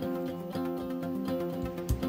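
Background music with steady held tones, and a single light knock near the end.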